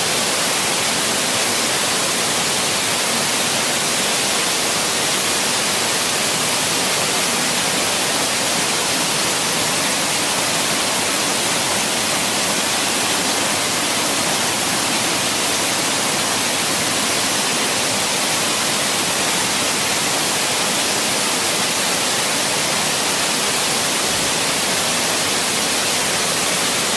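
Hermitage waterfall on the River Braan in spate after heavy rain: a steady, unchanging rush of falling water, bright and hissy.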